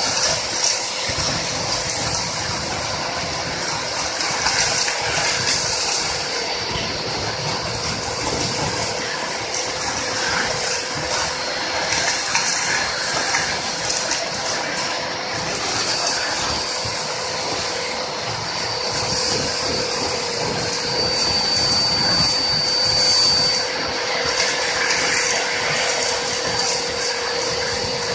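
Two-motor industrial vacuum cleaner (2.2 kW) running steadily: a rushing air noise with a constant whine and irregular crackling throughout.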